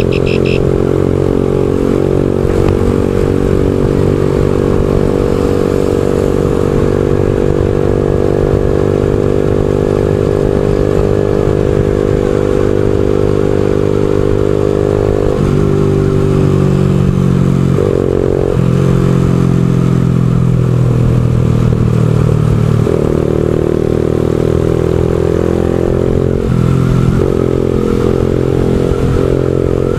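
A motorcycle's engine running while riding, with a low rumble from the road. Its note holds steady for about the first half, then drops and changes pitch several times.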